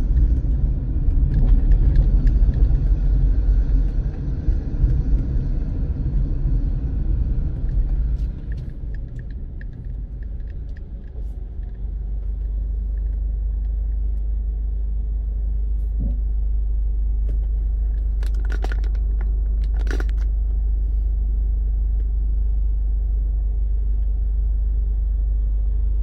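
A car driving, heard from inside the cabin: road and engine rumble, loud for the first eight seconds or so, then easing to a steadier, quieter low rumble.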